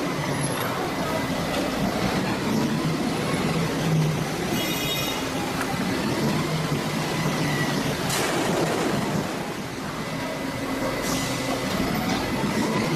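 Automatic filter press plate shifter running with a steady mechanical hum, pulling filter plates apart one by one along the side rails, with a couple of louder knocks in the second half.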